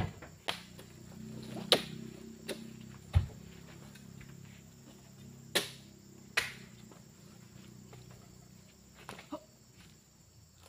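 Several sharp knocks and clicks at irregular intervals over a low steady hum that fades out about eight seconds in.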